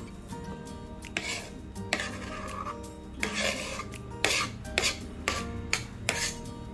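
Kitchen utensils scraping and knocking in several short, irregular strokes while sambal matah ingredients are handled and put into a heat-resistant bowl, over background music with held notes.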